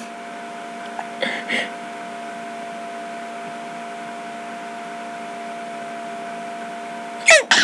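A steady room hum with a faint high whine. Two brief soft sounds come about a second in, and near the end a person makes a short, sharp vocal sound with a quickly rising pitch.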